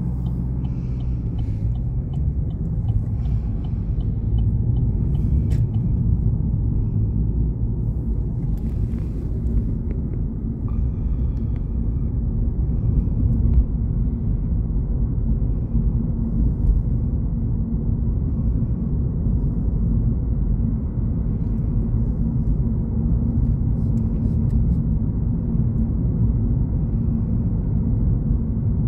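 Steady low rumble of a car driving along a town road, heard from inside the cabin: engine and tyre noise.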